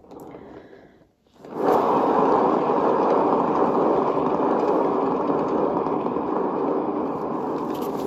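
A turntable spinning a freshly poured acrylic canvas. A steady whirring noise starts abruptly about one and a half seconds in and runs on evenly.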